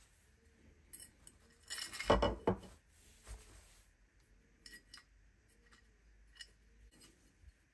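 A shop towel rustling about two seconds in, then a few light metallic clicks and clinks as small oil-pump parts are handled on a workbench.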